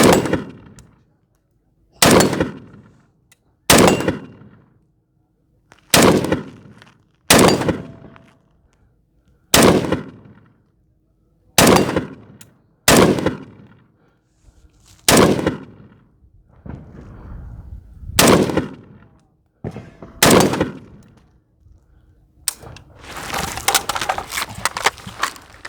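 Firearm shot in single, deliberate shots, about eleven of them one to three seconds apart, each with a short echoing tail. Near the end comes a dense stretch of crackling noise.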